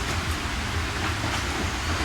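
Steady heavy rain falling, an even hiss with a deep low rumble beneath it and faint patters of individual drops.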